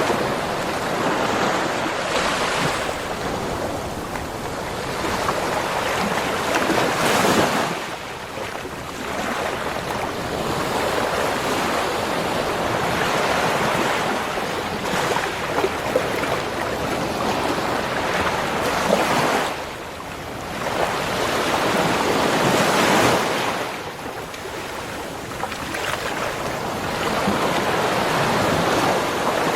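Ocean waves breaking and washing up a beach shore: a continuous rushing surf that swells and eases, with three louder surges that each drop off suddenly.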